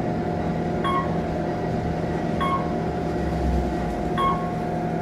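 Inside a 1996 Otis Elevonic 411 traction elevator cab: a steady electrical hum with two held tones, and a short, high electronic beep that sounds four times, about every second and a half.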